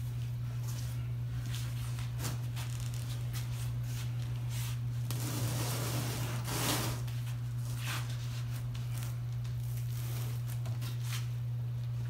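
A heavy cedar tabletop being turned over by hand and laid on a steel welding table: scattered knocks and a louder scraping, shuffling stretch about halfway through as it is lowered. A steady low hum runs underneath.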